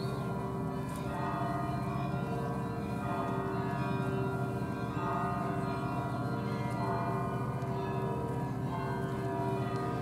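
Russian Orthodox church bells ringing together: many bells' tones overlap and hang on, with higher, lighter strikes now and then over the deeper hum.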